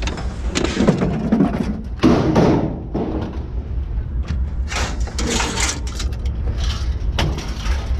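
Scrap being handled and dropped: irregular clanks, knocks and clatter, four or five in all, over a steady low engine rumble.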